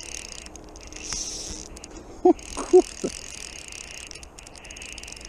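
Fly reel's click-and-pawl ratchet buzzing in three spells as the line is wound in on a hooked fish. About two seconds in come two short, loud squeaky notes.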